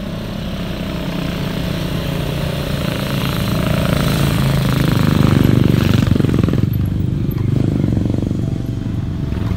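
Motorcycle engines running as bikes ride up close by, growing louder to a peak about halfway through and then easing off.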